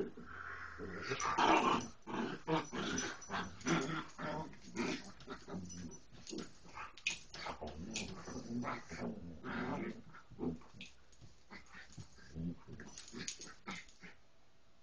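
Two dogs play-wrestling on a bed: play growling and scuffling, busiest near the start and tapering off after about ten seconds.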